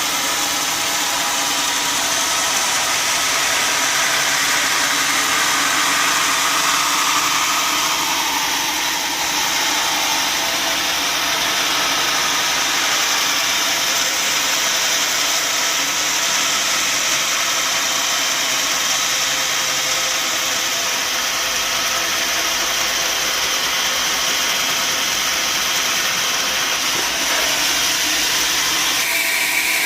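Sawmill machinery running steadily: a motor-driven log saw making a dense, high hiss. The tone shifts about nine seconds in and changes again just before the end.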